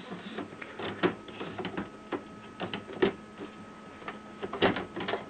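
Irregular plastic clicks and taps from hands working on an open Canon inkjet printer, sliding the ink cartridge carriage and handling its ink-supply tubing. A faint steady hum runs underneath.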